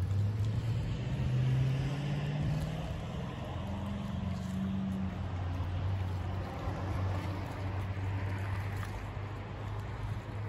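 A low, steady engine drone that rises in pitch a couple of times in the first half and fades slightly toward the end.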